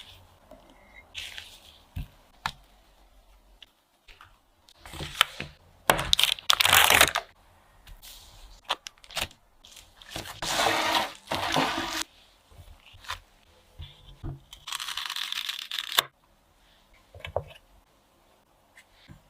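Kitchen food-preparation handling sounds: several bursts of rustling and tearing a second or two long, with scattered sharp clicks and taps in between.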